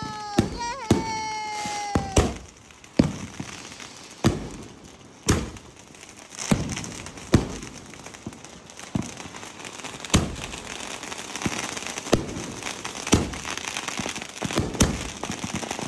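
Consumer aerial fireworks going off. A whistle falling slightly in pitch dies away about two seconds in, then shells burst in sharp bangs every second or so over a crackling hiss.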